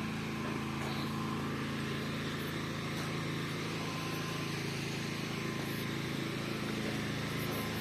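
Steady low drone of a motor running at idle, holding one even pitch throughout.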